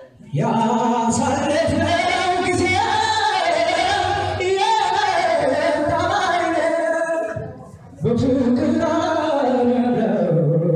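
A song with a voice singing long melodic phrases, breaking off briefly about seven and a half seconds in before the next phrase.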